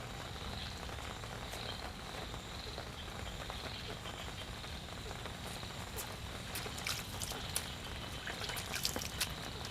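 A steady outdoor chorus of calling frogs, with a constant high buzzing band and a low background rumble. A few sharp clicks come in the last few seconds.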